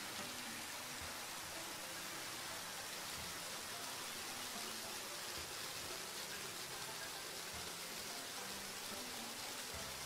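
Hose spraying a steady jet of water over a vehicle, making a continuous rain-like hiss.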